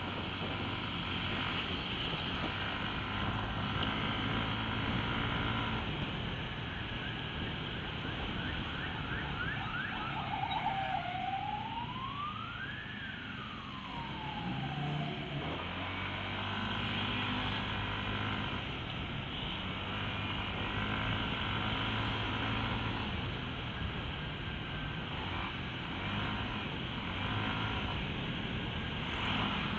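Yamaha NMAX scooter's single-cylinder engine running under steady wind and road noise while riding in traffic. In the middle a siren gives a few quick yelps, then one slow wail that rises and falls in pitch.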